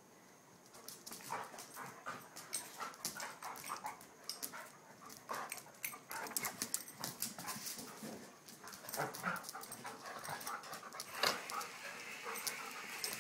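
Two dogs play-fighting: scuffling with many quick clicks and taps of claws on a concrete floor, mixed with the dogs' breathing and small vocal noises. There is a sharper knock about eleven seconds in.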